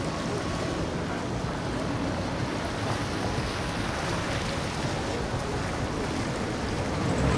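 Steady wash of water and wake with wind noise on the microphone, and boat outboard engines running faintly underneath.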